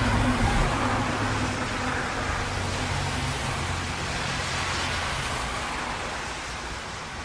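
Road traffic in heavy rain: a steady hiss of tyres and spray on the wet road, with a vehicle's low engine hum that slowly fades away over the first five seconds or so.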